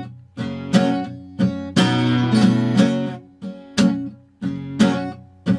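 Acoustic guitar strummed, chords ringing in a steady rhythm.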